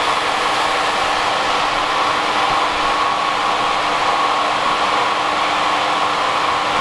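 Small electric CIP pump running steadily, recirculating cleaning solution through a stainless-steel fermentation tank: a constant, even whirring hum with no change in speed.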